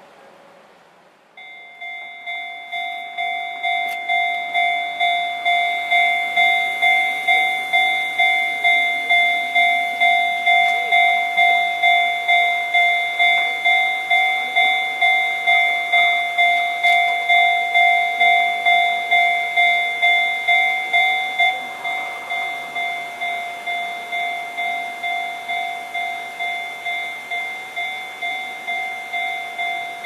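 Japanese railway level-crossing warning bell ringing: an electronic bell struck about twice a second, each strike ringing and fading, signalling that a train is approaching. It starts about a second and a half in and grows louder over the next few seconds, then drops a little in level about two-thirds of the way through.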